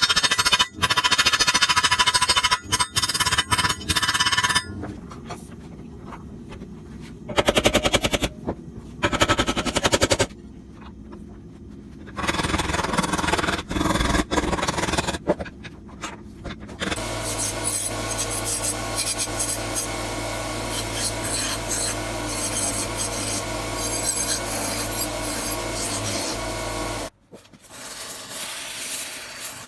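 Metalworking sounds cut together: short bursts of rapid metallic strikes and scraping, then a steady motor hum for about ten seconds that cuts off abruptly near the end.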